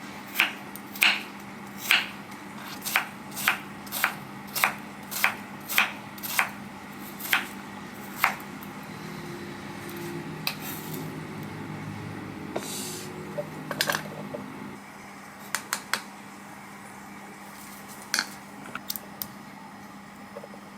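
Kitchen utensil sounds: a run of sharp taps and clicks, about two a second, for the first eight seconds or so, then a few seconds of softer scraping and handling, and a few scattered clicks near the end.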